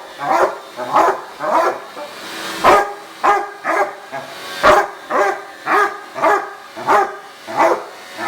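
A dog barking over and over at a vacuum cleaner, about two barks a second with a brief gap near the middle.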